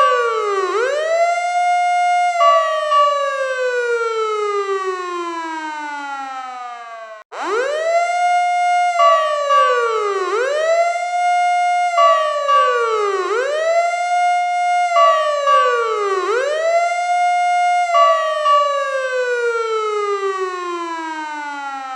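Fire truck siren wailing: a loud steady tone that dips sharply and swoops back up about every three seconds, then winds down in a long falling glide. It cuts off about seven seconds in, climbs straight back up, repeats the swooping wail and winds down again near the end.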